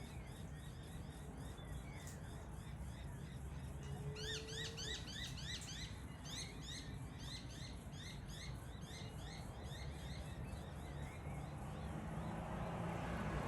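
Birds calling in quick runs of high, sharp chirps, several a second, loudest about four to seven seconds in. A rush of noise builds near the end.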